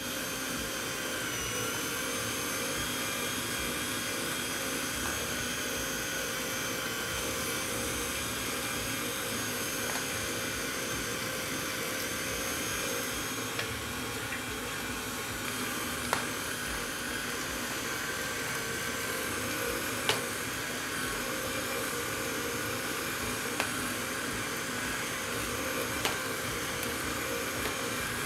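Electric meat grinder running steadily as it grinds beef, soaked black bread and onion, with a few brief sharp clicks now and then.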